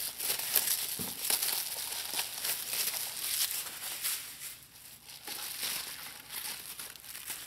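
Plastic packaging wrap crinkling and crackling in irregular bursts as it is pulled and unwrapped from a 3D-printed model part, quieter in the second half.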